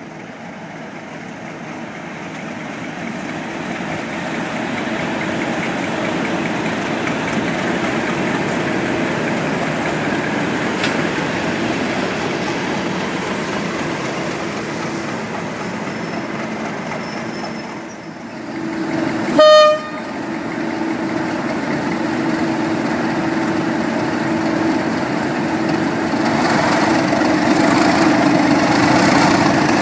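A Class 37 diesel-hauled train of Pullman coaches passing through the station, the rumble of wheels on rail building up and holding steady. Two thirds of the way in, after a brief break, a single short, loud horn toot, followed by the steady growl of a Class 37's English Electric diesel engine close by, growing louder toward the end.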